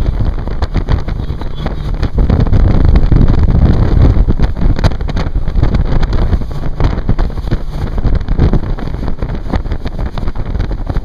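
Wind buffeting the microphone on a moving boat, a loud low rumble mixed with the rush of the boat through the water, swelling louder from about two seconds in and easing near the end.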